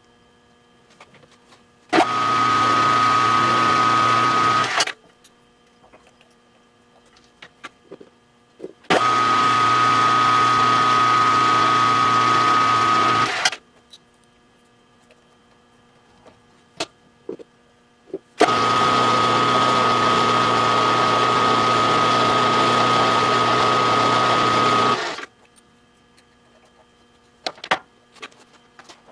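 Drill press spindle motor running in three separate runs of a few seconds each, the last the longest, each starting and stopping sharply, with a steady high whine. Light clicks of drill bits and tools being handled between the runs.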